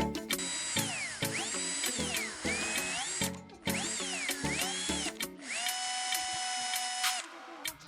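Background music with a steady beat, over which a small electric drill's motor whines, its pitch rising and falling as it speeds up and slows down, then holding steady for a moment near the end.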